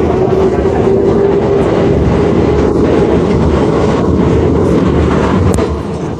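NYC Subway R62A car running on the rails, a dense rumble of wheels with clickety-clack from the track joints. Over it sits a steady hum, the car's odd humming noise, strongest in the first couple of seconds and fainter later.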